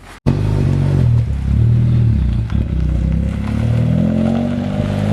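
Car engine running under acceleration, starting suddenly, its pitch rising in steps as it revs up.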